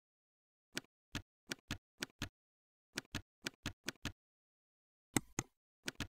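Computer keyboard keys clicking as text is typed, a dozen or so separate keystrokes in three quick runs against silence.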